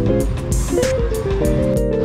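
Background music with a steady beat and held chords that change every second or so.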